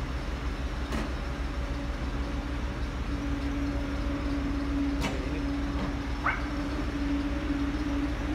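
Steady low rumble and hum of a refrigerated box truck running at a standstill, its steady tone growing stronger about three seconds in. A couple of faint clicks, and a short rising squeak about six seconds in.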